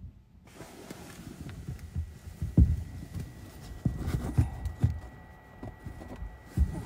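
Aerial fireworks shells bursting at a distance: a series of low booms, the loudest about two and a half seconds in, several more a second or two later and another near the end.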